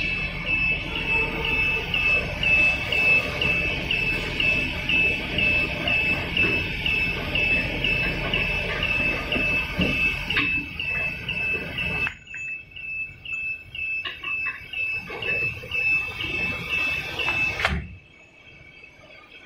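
Filament winding machine running, with a high chirping alarm beep repeating about twice a second. The low machine noise drops away about two-thirds of the way through, a few clicks and knocks come as the spool and filament guide are handled, and the beeping stops near the end.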